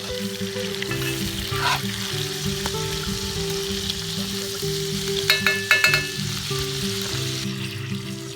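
Food sizzling as it fries, a steady hiss, under background music with stepping low notes. A few bright metallic clinks come about five to six seconds in.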